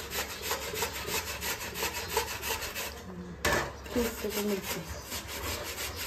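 Cucumber being grated by hand on a round stainless-steel grater: a rasping scrape with each stroke, about three or four strokes a second, with a short pause a little past halfway.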